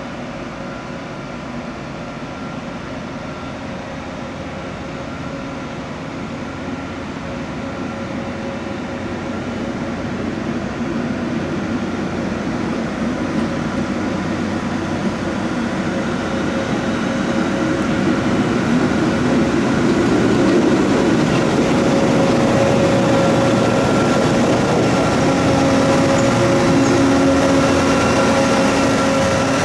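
Speno RR16-M14 rail grinding train travelling slowly past on the track, its diesel engines running with steady tones over the rumble of its wheels on the rails. It grows louder over the first twenty seconds or so as it comes up, then stays loud as it passes close by.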